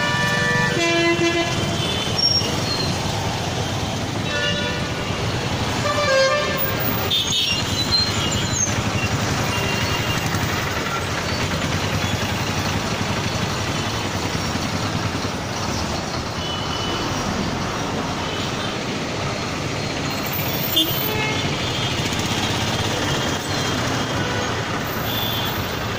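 Busy road traffic: a steady rumble of engines and tyres, with vehicle horns tooting several times, mostly in the first seven seconds.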